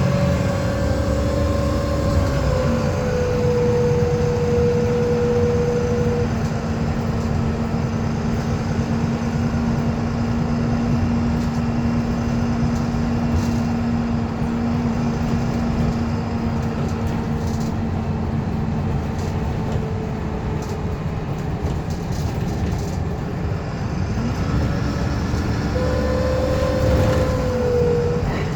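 VDL SB200 (Wright Commander) single-decker bus running, with a whirring whine over the engine and road rumble. The whine steps down in pitch about two and a half seconds in, holds steady, fades away about two-thirds of the way through, then comes back rising in pitch near the end.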